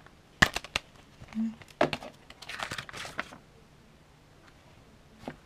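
Plastic Blu-ray case snapping open with a sharp click about half a second in, followed by a few more clicks and the rustle of a paper insert being handled.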